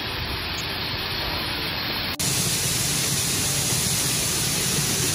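Steady noise of grain-handling equipment running as corn is augered out of the bin bottom and carried up the bucket elevator into a truck, with a low hum underneath. About two seconds in it cuts to a louder, even hiss.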